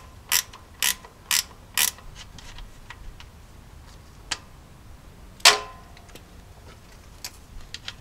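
Ratcheting wrench clicking in even strokes, about two a second, as the 13 mm nut on the starter's main power-cable terminal is backed off. A few faint clicks follow, then one sharp metallic clink about five and a half seconds in.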